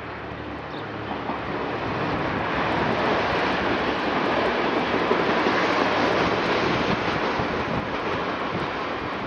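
Sorefame CP 0600 diesel multiple unit passing close by and running away along the track. Its engine and wheel noise builds to a peak about halfway through, then slowly fades.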